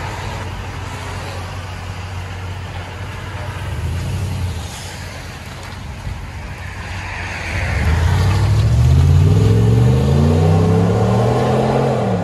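5.7-litre Hemi V8 of a 2020 Ram 1500, heard through a dual exhaust with a Flowmaster 40 Series muffler and resonators. It idles with a low steady note, gives a short rise about four seconds in as the truck pulls away, then accelerates hard from about eight seconds in, the revs climbing and loudest near the end.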